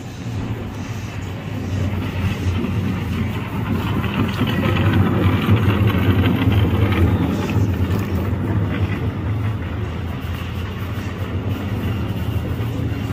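Low mechanical rumble like a running engine, growing louder over the first few seconds, loudest around the middle, then easing off a little.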